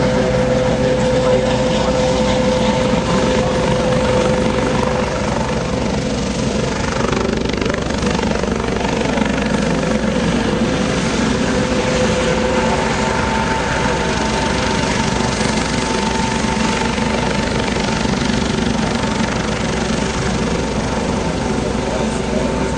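Coast Guard HH-65 Dolphin twin-engine helicopter hovering, its rotor and turbines running loud and steady, with a steady whine over the rotor noise that moves higher in pitch about halfway through.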